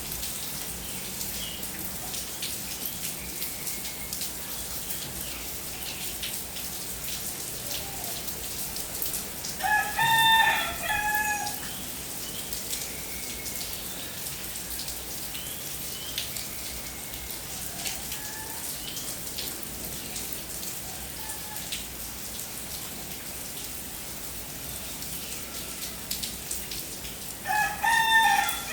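Steady rain falling, with a rooster crowing twice: once about ten seconds in and again near the end. A few faint short bird calls sound between the crows.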